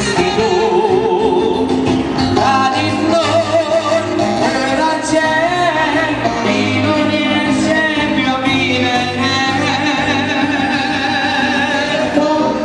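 Music: a song in which a singer holds long, wavering notes over a steady instrumental accompaniment.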